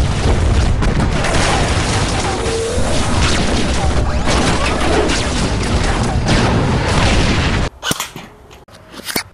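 Loud action-trailer soundtrack of booming explosions and rumble, which cuts off abruptly near the end. A few sharp cracks follow as airsoft BBs hit a drink can and set it spinning.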